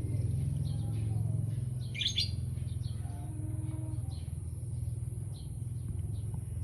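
Small birds chirping: short high chirps scattered through, with a louder burst of chirps about two seconds in, over a steady low hum and a steady high hiss.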